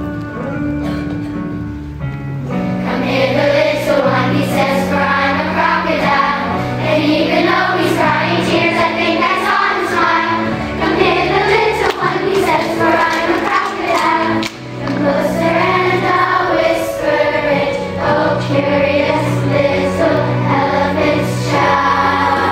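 Children's choir singing a song with instrumental accompaniment; the accompaniment plays alone for about the first two and a half seconds before the voices come in.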